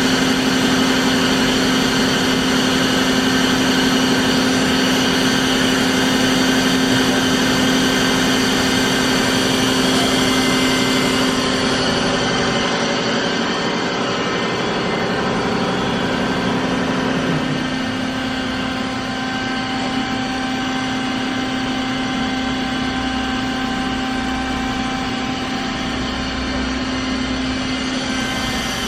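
Bridgeport FGC 1000 vertical blade grinder running, a steady machine hum with several constant tones. About 17 seconds in it gets slightly quieter and some of its tones change.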